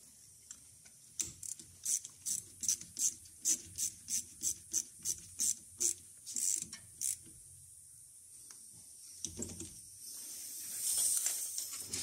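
Ratchet wrench clicking in quick strokes, about two to three clicks a second for some six seconds, while the brake caliper bolts are tightened. A short hiss follows near the end.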